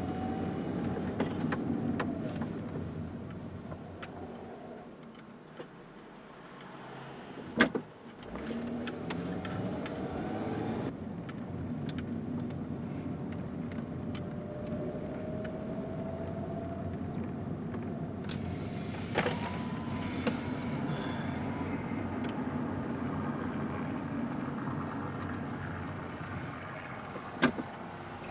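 Car driving, heard from inside the cabin: steady engine and road noise, broken by a few sharp clicks, the loudest about a third of the way in and another near the end.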